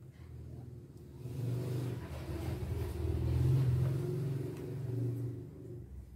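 A motor vehicle's engine rumbling, growing louder to a peak in the middle and fading away near the end.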